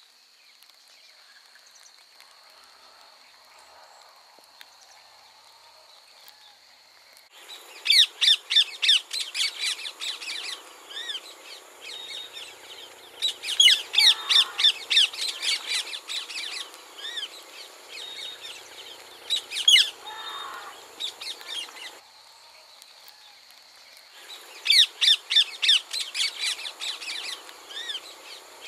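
Rose-ringed parakeets calling in bursts of rapid, shrill screeches, several a second, the first burst starting about seven seconds in and three more following. Before that there is only a faint, steady high tone.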